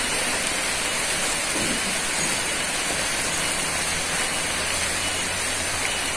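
A steady, even rushing hiss of outdoor background noise, with a faint low hum joining in about halfway through.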